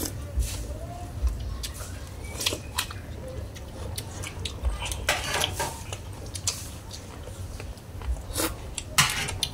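Close-up eating sounds: chewing and slurping of bamboo-shoot curry broth, with short clicks of metal spoons against a metal tray and a few louder slurps about five seconds in and near the end.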